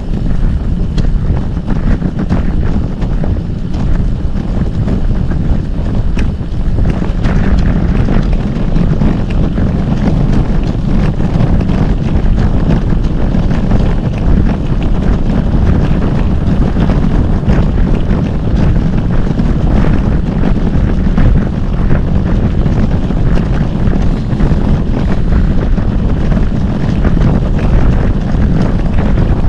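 Loud, steady wind buffeting on the microphone of a camera riding along on a moving bicycle, a deep rumble throughout.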